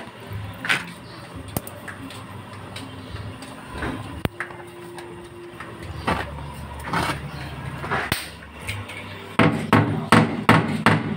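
Hammer blows on car body sheet metal: scattered single knocks, then a quick run of loud strikes near the end, over a low steady hum.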